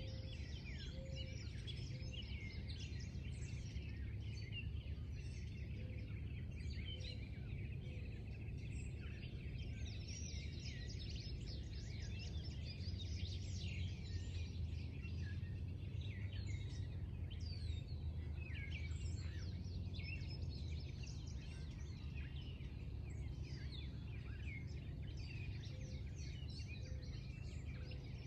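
Small birds chirping and singing, many short calls overlapping throughout, over a steady low hum.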